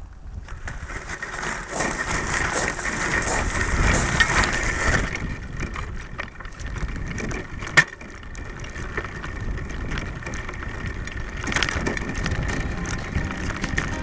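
A road bicycle rolling from gravel onto a wooden boardwalk, heard from the handlebars: tyres crunching and rattling with many small clicks over the surface. It is louder for the first five seconds, with a single sharp knock just before eight seconds, and a busier rattle again near the end.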